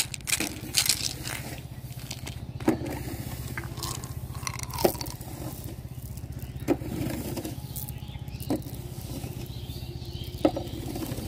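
A plastic candy bottle and hard-shelled candy-coated chocolates being handled: sharp small clicks and light rattles, roughly one every two seconds, over a steady low hum.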